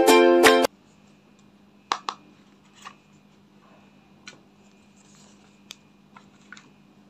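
Plucked-string intro music cuts off suddenly under a second in. Then come light clicks and taps from a hard eyeshadow palette case being handled and opened, with two sharper clicks about two seconds in the loudest, over a faint steady hum.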